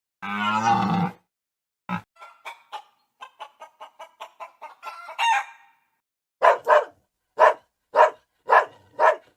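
Chickens: a drawn-out call of about a second at the start, then a quick run of short clucks, then steady double clucks about twice a second.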